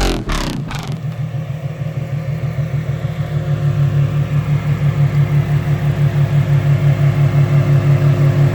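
A car engine idling with an even, low, rhythmic pulse that grows slowly louder.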